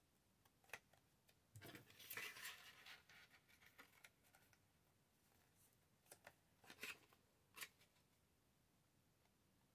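Near silence, with faint handling of paper craft materials: a light click, a soft scratchy rustle lasting about a second and a half, then a few faint ticks near the end.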